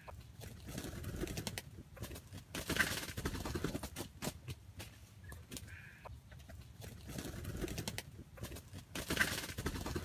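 Jungle fowl rooster calling twice, about six seconds apart, amid scattered clicks and rustling in the undergrowth.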